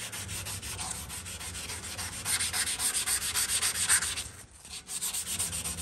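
Folded 320-grit wet sandpaper rubbed by hand over primered truck-cab sheet metal: a quick back-and-forth rasping that changes direction, louder in the middle and dropping off briefly about four and a half seconds in.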